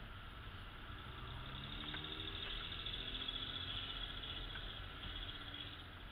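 Car interior road noise while driving: a steady low rumble of engine and tyres heard inside the cabin, with the engine pitch rising slightly in the middle.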